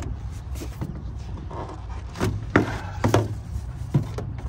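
Plastic and rubber air intake tube being worked off the engine and moved aside: rubbing and handling noise with several sharp knocks in the second half, over a low steady hum.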